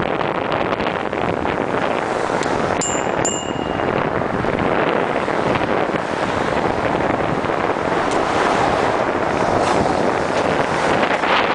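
Wind buffeting the microphone of a camera riding on a moving bicycle, a steady loud rushing noise mixed with passing traffic. About three seconds in, two short high-pitched chirps.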